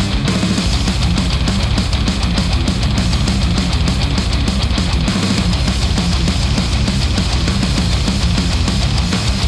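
Heavy rock music with electric guitar and a fast, driving beat, played through HiFiMAN Sundara planar-magnetic headphones and picked up by microphones placed at the earcups.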